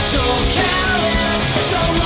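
Punk rock band playing loudly: distorted electric guitars over drums and crashing cymbals.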